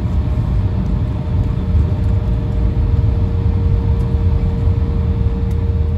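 Cabin noise of an Embraer E175 taxiing: the CF34 jet engines at idle, with a steady low rumble and a constant mid-pitched hum.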